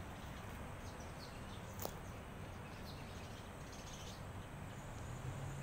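Outdoor background noise with a low steady hum and faint, scattered bird chirps. There is a single sharp click about two seconds in.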